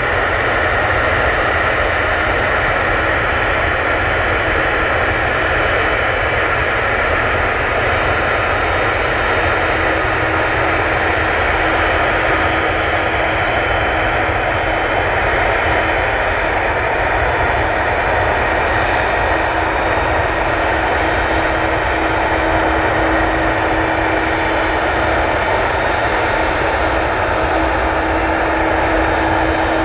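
Boeing 767-300 airliner's twin jet engines running steadily at low taxi thrust: a constant jet rush with several high whine tones and a low hum that grows louder about halfway through.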